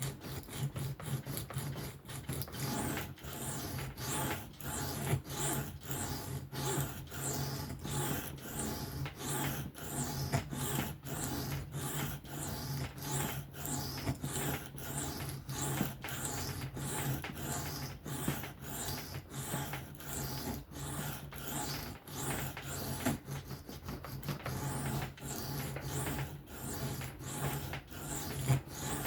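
Knife blade stroked back and forth on an Atoma 400 diamond sharpening plate in freehand sharpening: a steady rhythm of short rasping scrapes, about two a second, over a constant low hum.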